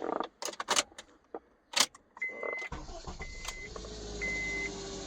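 2010 Honda Accord started with a newly programmed transponder key: a few clicks as the key is worked in the ignition, then a little past halfway the engine catches and settles into a steady idle, a sign the immobiliser accepted the key. A dashboard warning chime beeps about once a second from just before the engine catches.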